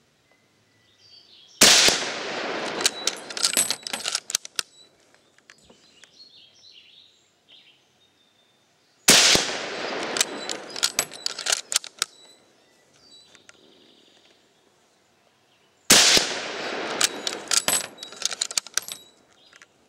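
Three rifle shots from an 8mm Mauser bolt-action rifle, spaced about seven seconds apart. Each shot is followed by a couple of seconds of crackling echo.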